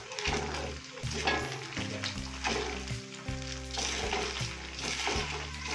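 Turmeric chicken pieces sizzling steadily in hot oil in an aluminium wok, stirred and turned with a wooden spatula. The chicken is now cooked through.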